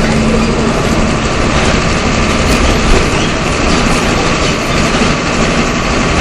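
MWM 6.12 TCAE six-cylinder turbodiesel of a Volkswagen Volksbus 17.210 EOD bus running: a loud, steady drone with a constant hum.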